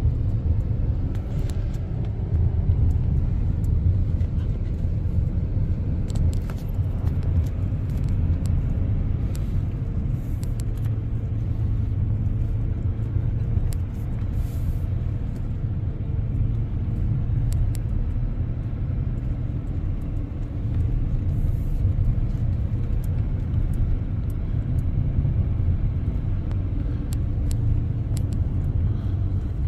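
Steady low rumble inside the cab of a 2024 GMC Duramax diesel pickup driving on a wet road: the truck's engine and tyre noise. Scattered faint light ticks sound over it.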